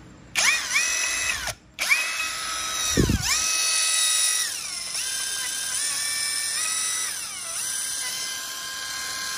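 Small electric motor of a Makita-style cordless power tool running under the trigger: it starts, cuts out briefly, starts again, and its pitch slides down and back up twice and steps between speeds. One low thump about three seconds in.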